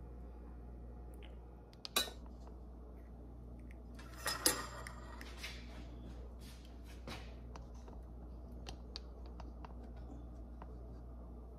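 A plate and metal utensils clattering against the countertop and each other: a sharp clack about two seconds in, a louder cluster of clatters around four and a half seconds, then light scattered clicks, over a low steady hum.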